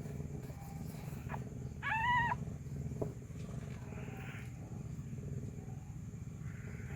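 A cat mewing once, a short high call about two seconds in, over a steady low hum.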